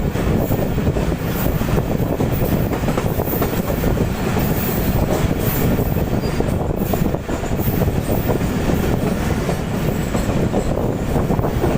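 Passenger train's wheels rumbling and clattering over rail joints and switch points, a steady run of clicks over a loud low rumble.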